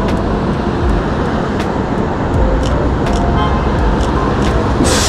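City traffic rumble as a bus approaches, with a scatter of sharp camera shutter clicks from rapid-fire shooting. A loud hiss starts suddenly just before the end.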